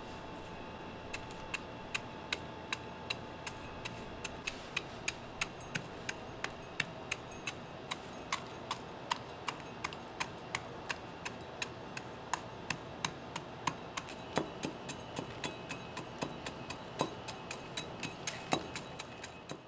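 Small metal hand cultivator scratching through dry compost and breaking up its clumps: a quick run of clicks and scrapes, about two or three a second, over a steady hiss.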